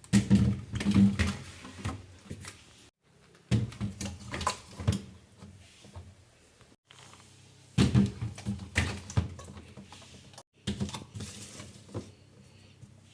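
Containers and jars knocking and clattering as items are handled and set down in a refrigerator. The sound comes in four short bursts of clicks and knocks, each broken off abruptly.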